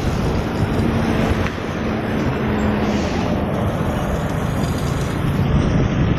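A passenger bus's engine running as the bus drives past close by, over steady roadway traffic noise.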